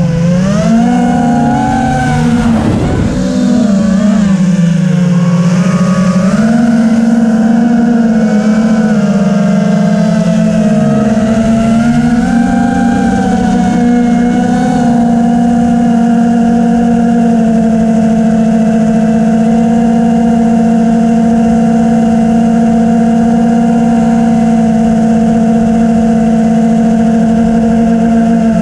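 FPV drone's electric motors and propellers buzzing. The pitch rises and falls with the throttle for the first fifteen seconds or so, then holds steady.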